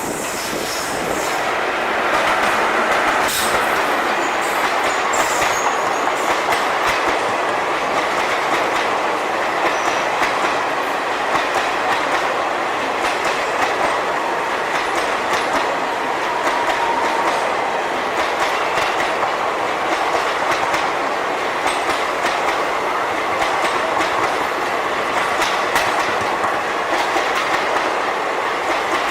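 Passenger coaches of an Indian Railways express rolling along the track, with wheels clattering over rail joints and the coaches creaking. The clatter is steady, with many sharp clicks and faint squeaky tones running through it.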